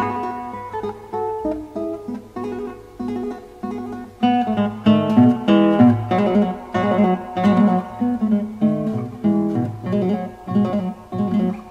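Acoustic guitar music: plucked and strummed notes in a steady rhythm, growing louder and fuller about four seconds in.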